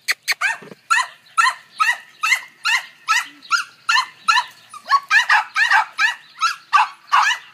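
Cavalier King Charles Spaniel barking over and over in high, sharp barks, about two a second, each one dropping in pitch; a few quick yips come before the steady run starts about a second in.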